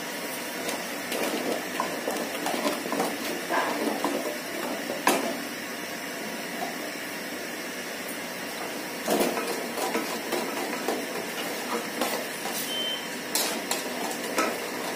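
Kitchen clatter: a wooden spoon and utensils knocking and scraping against an aluminium cooking pot in two busy stretches, with one sharp click about five seconds in, over a steady hiss.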